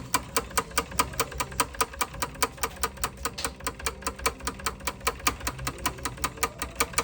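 Manual typewriter with an extra-wide carriage clicking rapidly and evenly, about seven clicks a second, as its escapement steps the carriage along under the mainspring's pull.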